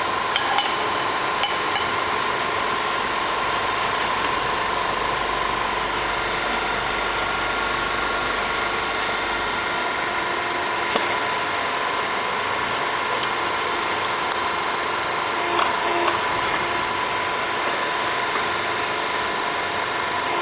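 Workshop machinery running steadily with a constant whine, with a few sharp metal clicks and knocks, the clearest about eleven and sixteen seconds in. A low hum underneath stops about ten seconds in.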